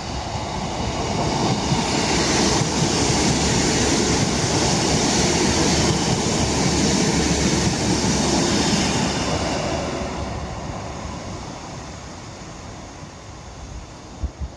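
Northern class 150 diesel multiple unit passing close by: engine and wheel-on-rail noise build over about two seconds, hold, then fade away over the last few seconds. Two short low thumps near the end.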